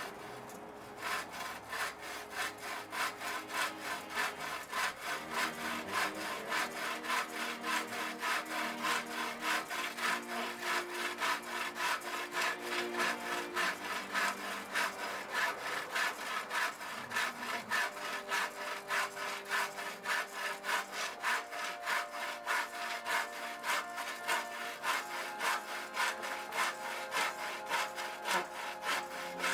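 Saw cutting a wooden blank in half, in steady back-and-forth strokes about two a second.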